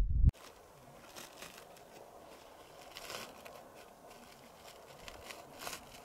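A loud low rumble cuts off abruptly at an edit just after the start. It leaves a faint steady outdoor hiss with a few soft crackles scattered through it.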